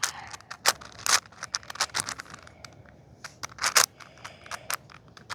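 6x6 Rubik's cube being turned by hand: irregular sharp plastic clicks and clacks as its layers are twisted, with a couple of louder clacks about a second in and near four seconds.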